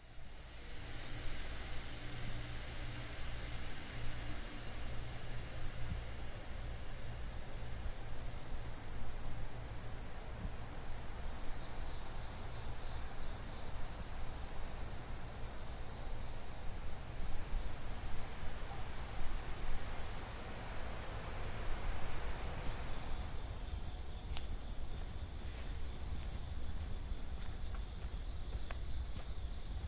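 A chorus of bell crickets (suzumushi) chirping in a steady, unbroken high trill over a low background rumble, with a few soft knocks near the end.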